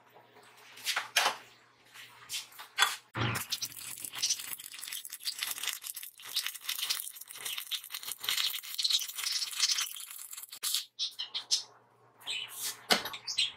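Electric arc welding on steel: a crackling, spattering sizzle, first in short bursts, then a continuous run of several seconds that stops about eleven seconds in. A couple of sharp knocks follow near the end.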